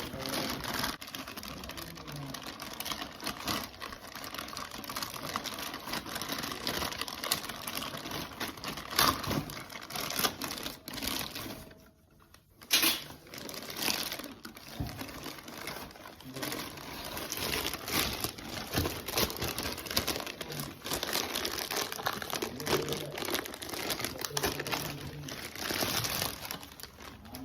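Plastic packaging crinkling and rustling as the parts are handled, with scattered clicks and light knocks. It breaks off briefly about twelve seconds in.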